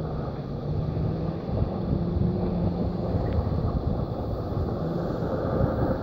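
Wind rumbling on the microphone, with the steady hum of a vehicle engine underneath, from the pickup truck driving across the icy lot.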